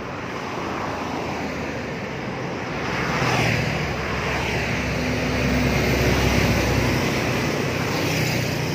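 Road traffic passing close by: one vehicle sweeps past about three seconds in, a heavier one with a deep rumble goes by midway, and another passes near the end.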